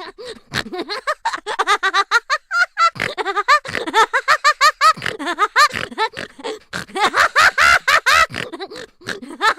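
Cartoon sound effect of rapid, high-pitched squeaky chattering: a fast run of short, voice-like chirps that bob up and down in pitch.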